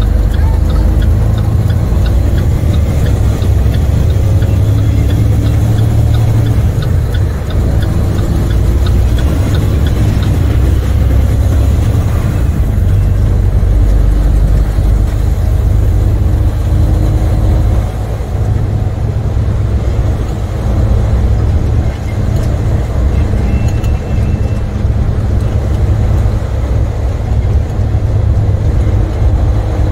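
International semi-truck's MaxxForce diesel engine running steadily as the truck drives, a low drone heard from inside the cab along with road noise.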